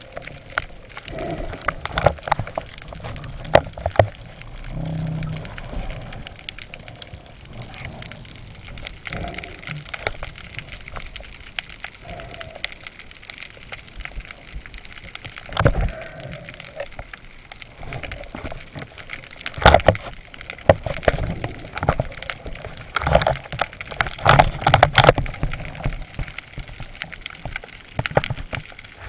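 Underwater sound picked up by an action camera in its waterproof housing: a constant crackle of short clicks with scattered louder knocks and taps, the loudest about 16 and 20 seconds in and a cluster near the end.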